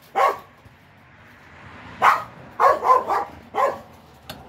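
Dogs barking in short, separate barks, going crazy: one bark right at the start, then a run of five about two seconds in. A single sharp tap near the end.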